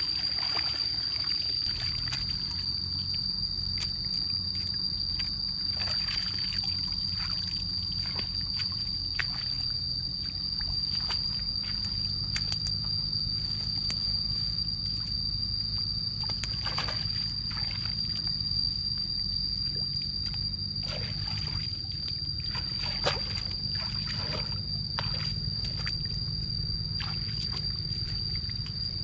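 Shallow muddy water splashing and sloshing in irregular bursts as a person wades through it and gropes in it by hand. A steady high-pitched whine and a low hum run underneath.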